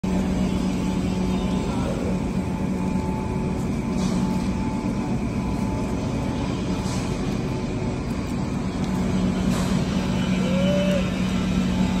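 Steady industrial machinery drone with a constant low hum, the background noise of a working drydock. A brief squeak-like glide near the end.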